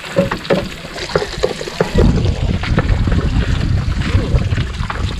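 Wooden spoon scraping and stirring in a pan of garlic and cubed luncheon meat frying on a portable gas stove, with light clicks and a sizzle. About two seconds in, wind starts buffeting the microphone in a low rumble that becomes the loudest sound.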